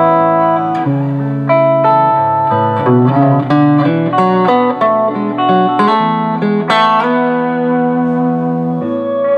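Electric guitar, a Road Worn Telecaster fitted with a Bigsby vibrato tailpiece, played with a pick: a run of chords and single notes, each struck and left to ring.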